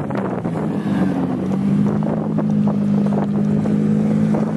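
Nissan 240SX drift car's engine idling steadily close by, its pitch easing down in the first second or so and then holding level, with wind buffeting the microphone.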